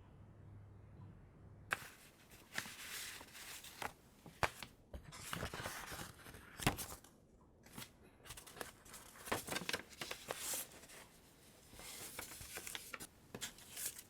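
Hands handling small parts or packaging at close range: an irregular run of sharp clicks, scrapes and rustles, starting a little under two seconds in.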